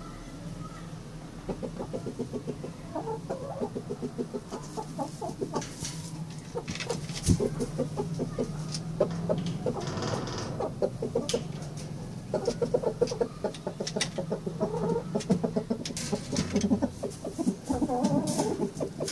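Broody hens clucking in long runs of fast, soft clucks, with scattered sharp clicks and a brief louder, harsher burst about ten seconds in.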